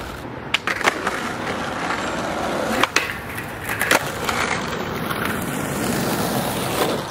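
Skateboard wheels rolling over an asphalt pump track, a steady rumble broken by a few sharp clacks.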